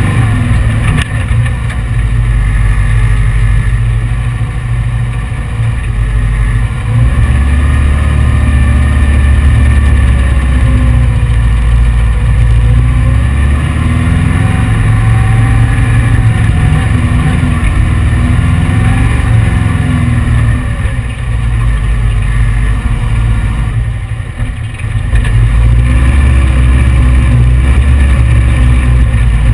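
An 1835 cc air-cooled VW flat-four engine pulls a heavy sand car across the dunes. The engine note rises and falls as the throttle is worked, with a brief easing off about three-quarters of the way through.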